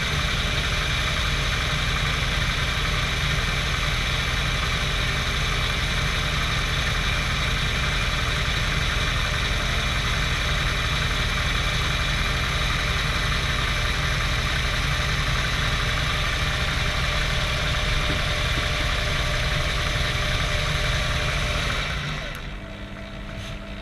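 Proxxon PD 250/e mini metal lathe running at regular turning speed, a steady hum with a whine of several steady tones, during a light deburring pass along a freshly cut external thread. About 22 seconds in the lathe is switched off and the sound drops away.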